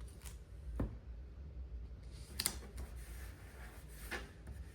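Quiet handling of a paper planner and sticker sheet: a few soft clicks and taps, most likely a sticker being peeled off and pressed onto the page.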